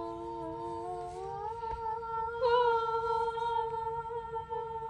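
Voices humming long, steady notes. Two notes sound together at first, then the lower one slides up about a second and a half in to join the higher one, and the single note is held to the end.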